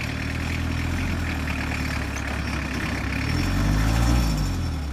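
Pickup truck engine running slowly as the truck crawls over loose rock-slide rubble. About three seconds in it revs up and then eases off again.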